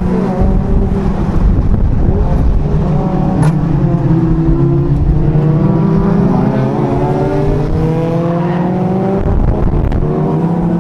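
Honda NSX's V6 engine heard from inside the cabin under hard acceleration on track, its pitch climbing and dropping several times as it revs through the gears.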